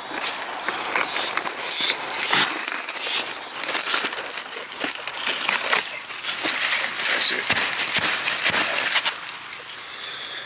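Dry banana leaves rustling and crackling close by as they are pushed and brushed, with many small snaps and clicks, easing off near the end.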